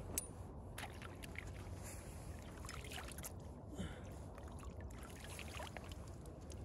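Small splashes and trickling water as a fishing keepnet is handled in shallow water and a hand is dipped and shaken off, with a few short knocks, the sharpest just after the start and another about four seconds in.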